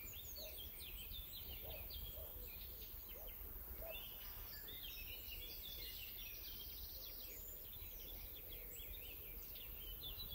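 Chorus of wild birds singing, many short chirps and trills overlapping throughout, over a steady low rumble.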